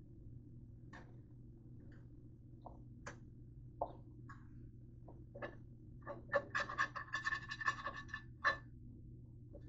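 A utensil scraping and knocking against a nonstick frying pan as fried pork is scraped out into a metal bowl. Scattered single scrapes and clicks, then a quick run of rapid scraping with a slight ring from about six to eight and a half seconds in, over a steady low hum.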